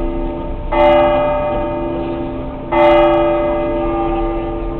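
A church bell in Seville Cathedral's Giralda tower tolling. It is struck twice about two seconds apart, on the same note each time, and each stroke rings on into the next.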